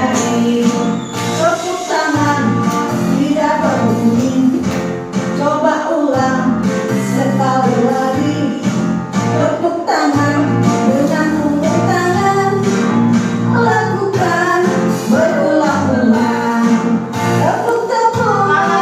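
Music: a woman singing a song over instrumental accompaniment.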